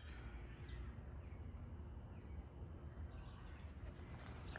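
Quiet outdoor background: a low steady rumble with a few short, falling bird chirps.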